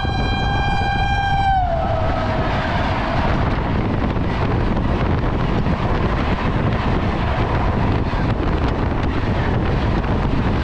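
An oncoming train's horn holds one steady note, then drops in pitch about one and a half seconds in as the train passes and fades out. After it comes the loud, steady rush and rumble of its coaches passing close alongside, heard from the open door of a moving train.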